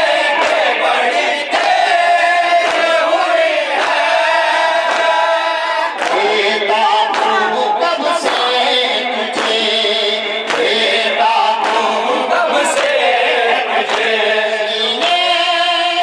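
Group of men chanting an Urdu noha in unison with no instruments, the lead reciter's voice carried by the chorus. A steady beat of chest-strikes (matam) keeps time under the singing, about one or two a second.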